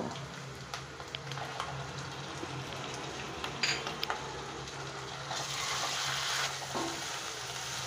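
Chopped onions and ginger-garlic paste frying in oil in a steel pan, a steady sizzle with a wooden spatula stirring and scraping, over a steady low hum. The sizzle grows louder for about a second, a little past five seconds in.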